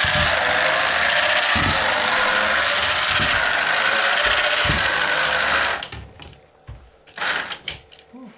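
Electric drive motor and gear train of a large 3D-printed walking bug robot running steadily, with a harsh grinding. The motor is mounted a little too close, so the gears mesh too tightly. Dull thumps come about every second and a half as the legs step, and the motor stops about six seconds in, leaving a few clicks and knocks.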